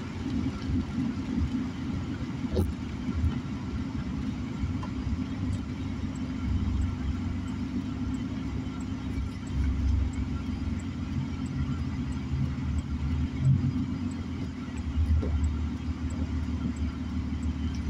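Car interior on a wet road: a steady low rumble of tyres and engine, swelling and easing a little as the car moves.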